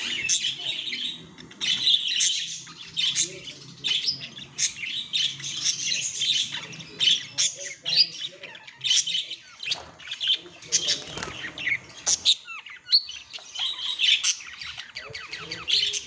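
Budgerigar courtship warble: a fast, unbroken chatter of chirps, clicks and squawks, with a brief lull about three-quarters of the way through.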